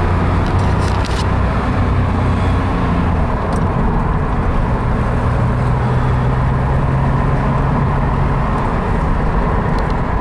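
Air-cooled flat-six engine of a 1979 Porsche 911 SC Targa heard from inside the cabin while driving, with road noise. Its note is lower in the first few seconds, climbs to a higher steady pitch about halfway through and drops near the end; a few light clicks come about a second in.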